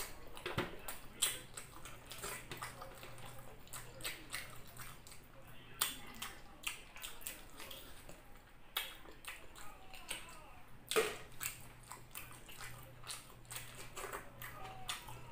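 Close-up wet eating sounds of a person eating saucy chicken with the hands: irregular lip smacks, sucking and chewing, with a few louder smacks about 6 s and 11 s in.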